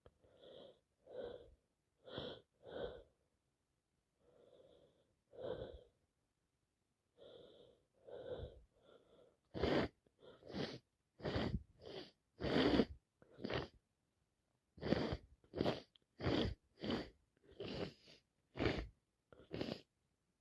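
A person with a wet head cold sneezing. First come several seconds of short, breathy catching inhales. Then, about ten seconds in, a fit of sharp sneezes follows in quick succession, roughly two a second, with one brief pause midway.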